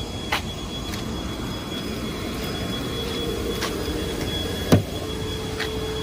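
Footsteps on a gravelly lot over a steady rumbling background with a thin high tone, then a sharp click about three-quarters of the way through as a car door is unlatched and opened.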